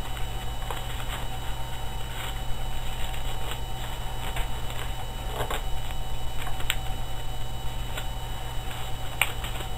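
Paper being folded and creased by hand: soft crinkles and rustles, with a few sharper crackles in the second half, over a steady low electrical hum.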